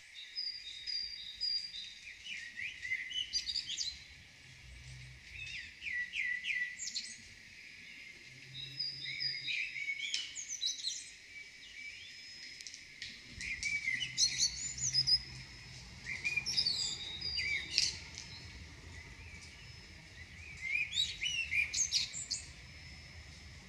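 Small birds chirping and trilling in short clustered phrases with pauses between, high and thin with no low sound beneath.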